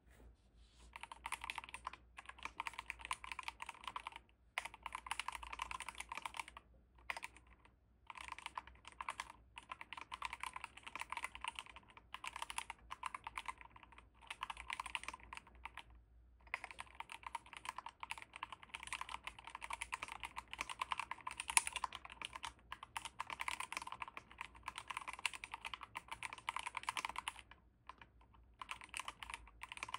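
Fast, continuous typing on a DrunkDeer G75 magnetic-switch mechanical keyboard: a dense run of key clacks with brief pauses every few seconds.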